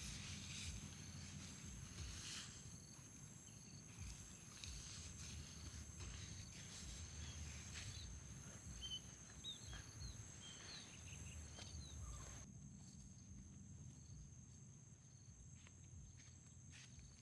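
Faint outdoor night-time ambience: insects trilling in steady high tones, with a few short bird chirps around the middle and scattered soft clicks. A low rumble underneath stops about three-quarters of the way through.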